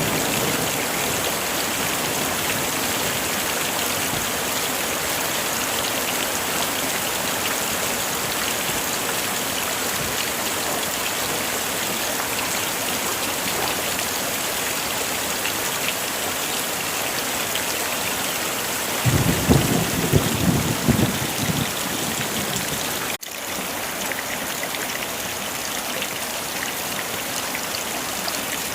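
Heavy rain falling steadily as an even hiss. A short rumble of thunder comes about 19 seconds in and lasts a few seconds. The sound drops out for an instant about 23 seconds in.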